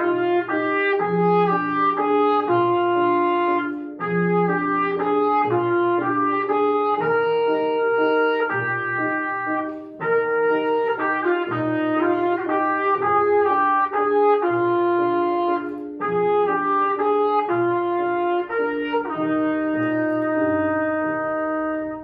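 Solo trumpet playing a waltz melody in phrases of moving notes, with brief breaths between them, ending on a long held note that stops near the end.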